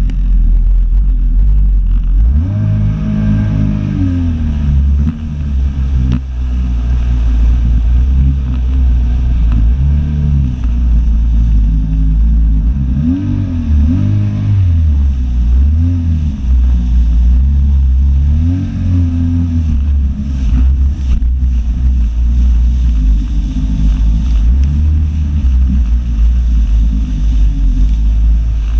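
Jet ski engine running at speed. It revs up about two seconds in, then its pitch rises and falls again and again as the throttle is worked, over a steady low rush of water and wind.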